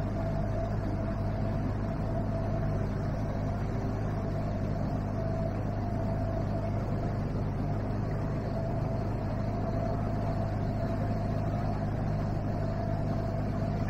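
A MacGregor 26X sailboat's outboard motor running steadily under way: a constant drone with a thin, steady whine above it.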